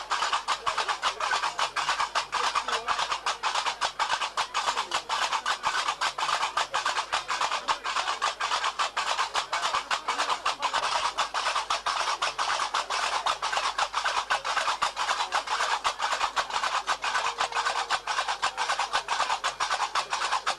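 Diwan ritual music carried by a fast, unbroken clatter of qarqabou, the iron castanets of the Diwan ensemble.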